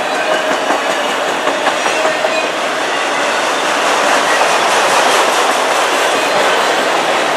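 Autorack cars of a CN freight train rolling past: steady rumble of steel wheels on rail, with the wheels clicking over rail joints.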